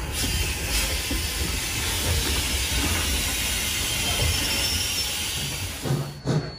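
Sierra Railway No. 3, a 4-6-0 steam locomotive, passing close by with coaches in tow: a steady hiss of steam over a low rumble of the running gear. Shortly before the end the sound switches to a quick rhythm of short beats with a thin high tone.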